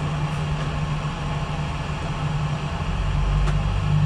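Steady low drone inside a Boeing 777-200ER passenger cabin during pushback, with a deeper rumble coming up about three seconds in.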